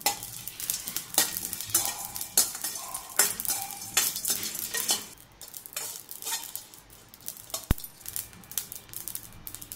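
A spatula scraping and stirring whole spices (coriander, cumin and fennel seeds, cinnamon, star anise, cloves) as they roast in a stainless steel pan. The seeds rattle against the metal in irregular strokes.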